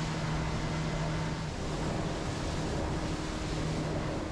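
Small boat's motor running steadily as the boat moves over water, a low even hum under a wash of water and wind noise.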